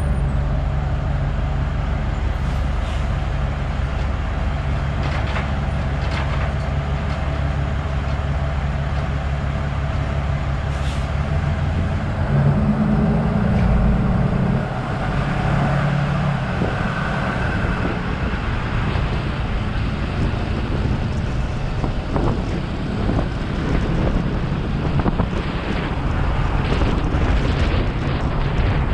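Pickup truck engine idling steadily while towing a loaded container trailer, then picking up revs about twelve seconds in as the truck pulls away. After that comes a rougher engine and road noise with wind rushing over the side-mounted camera.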